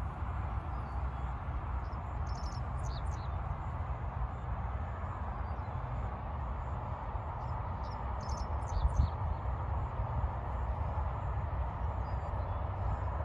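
Birds chirping in two brief clusters of short high calls, about two seconds in and again near the middle, over a steady low background rumble.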